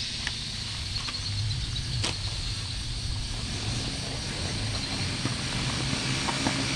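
Distant engine drone, low and steady, growing a little louder and more tonal toward the end, with a few light clicks over it.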